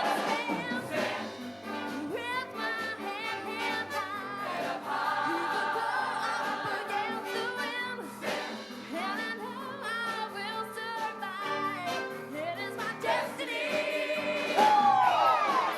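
High school show choir singing with musical accompaniment, recorded live in a hall.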